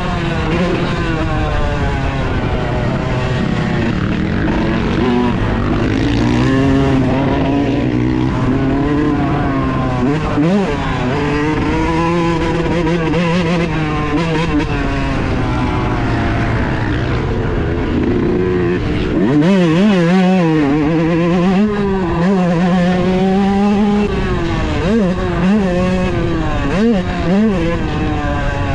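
Yamaha YZ125 two-stroke dirt bike engine running hard under a rider, its pitch climbing and falling with throttle and gear changes, with quick drops and re-climbs about ten seconds in, near the middle and again near the end. Heard close up from on the bike.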